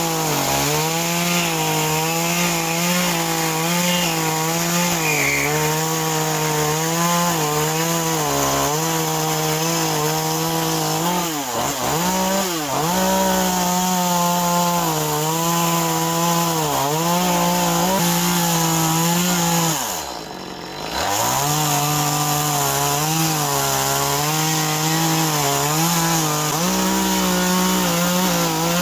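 Small two-stroke top-handle chainsaw, an Echo 2511, running at high revs while carving into a log. The engine note wavers and dips as the chain bites into the wood. About twenty seconds in the throttle is let off briefly, then opened up again.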